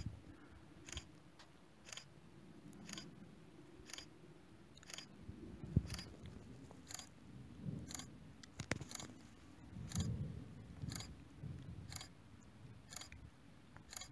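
DSLR camera shutter firing about once a second while shooting a time-lapse, a short sharp click each time. A faint, uneven low rumble runs beneath.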